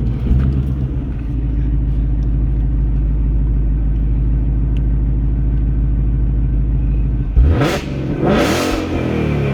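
Supercharged V8 of a 2018 Roush Mustang idling steadily, then revved sharply near the end, the pitch climbing fast and falling back toward idle.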